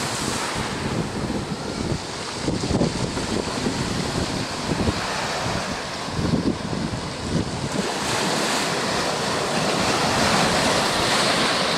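Sea waves breaking and washing ashore, with gusts of wind buffeting the microphone. The surf's hiss swells and grows louder about two-thirds of the way through.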